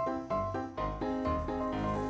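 Background music: a keyboard melody of short, evenly paced notes over a bass line.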